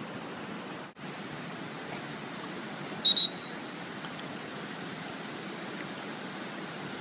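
Steady rush of whitewater rapids. About three seconds in, two short, sharp, high-pitched blasts cut through it.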